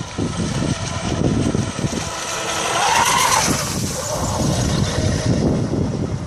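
Pro Boat Blackjack V3 radio-controlled speedboat running fast on the water, its motor whine and hull noise swelling as it passes close about three seconds in and then fading away. Wind buffets the microphone throughout.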